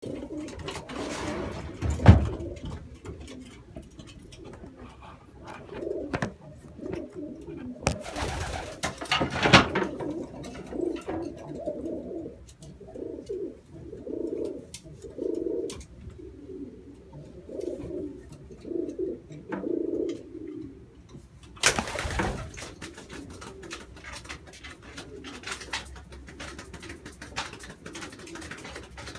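Racing pigeon hens cooing, a run of repeated low, pulsing coos. A few short, louder noises stand out near the start, about a third of the way in, and about three quarters of the way through.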